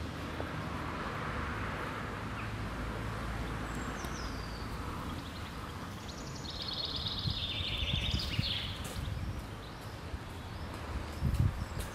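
Outdoor street ambience: a steady low rumble of distant traffic, with a small bird calling, a short falling whistle about four seconds in and then a longer high chattering call around seven to eight seconds. A few low thumps near the end.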